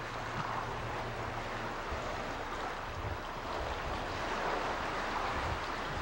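Steady wash of open-sea waves, with wind rumbling on the microphone.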